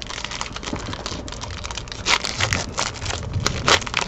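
Foil wrapper of a trading-card pack being torn open and crinkled by hands: an irregular run of crackles and rustles.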